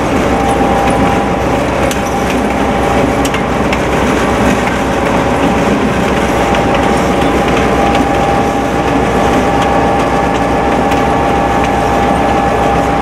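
EMD GP-9 diesel-electric locomotive running alongside at a steady speed: a steady diesel engine drone mixed with rolling noise, with road and wind noise from the car pacing it.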